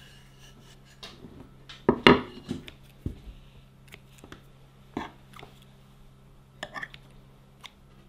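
Irregular knocks and clatter of kitchen utensils and dishes on a table while pie crust is rolled out and handled, loudest about two seconds in, over a low steady hum.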